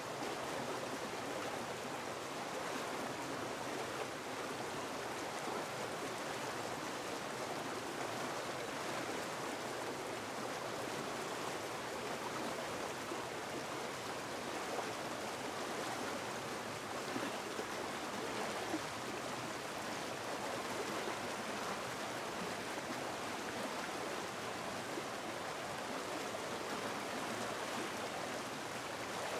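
Shallow mountain stream rushing over rocks: a steady wash of running water.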